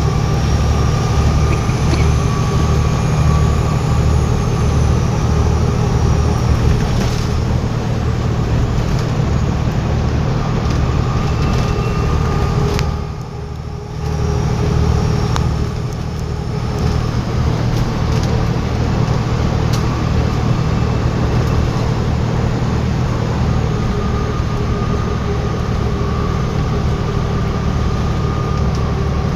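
Volvo B7TL bus's turbocharged six-cylinder diesel engine running under way with a pulsing low throb and a high turbo whistle that rises and falls. The engine sound drops away briefly about halfway through, then picks up again.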